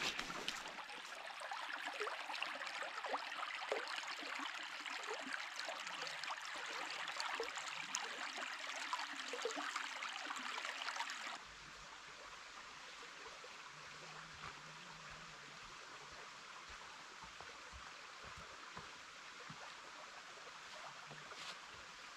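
Running water from a small stream, trickling and babbling. About eleven seconds in it drops suddenly to a much quieter, thinner hush.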